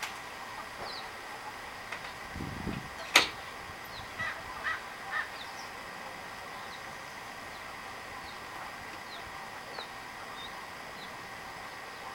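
Domestic poultry in the herded flock giving scattered short calls, mostly in the first few seconds, with one sharp knock about three seconds in.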